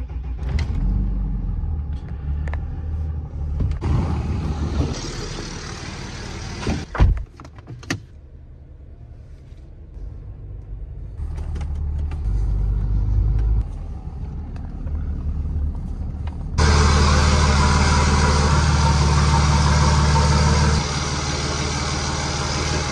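Third-gen Dodge Ram's 5.9 Cummins inline-six turbo-diesel running, heard from inside the cab as the truck is moved, with a sharp knock about seven seconds in. From about two-thirds of the way through, the diesel is heard much louder and fuller.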